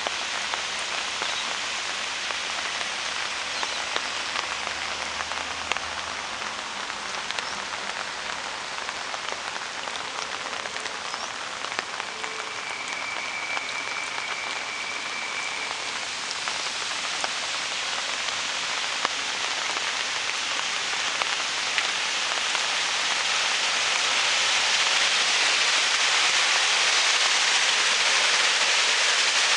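Steady rain falling on rocks, concrete and grass, with many small sharp drop sounds. It grows louder about three quarters of the way in.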